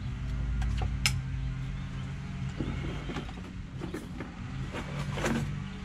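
Clicks, clinks and knocks of a corded DeWalt reciprocating saw being handled and set down at its carrying case, the sharpest click about a second in and a run of clatter in the second half, over a steady low hum.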